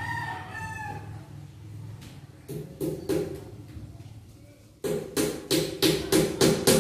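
A rooster crows once at the start. Then come a couple of sharp knocks, and from about five seconds in a fast, regular run of loud hammer-like blows, about three a second, each with a short ringing tone and growing louder, as the wooden trim board is fixed to the wall.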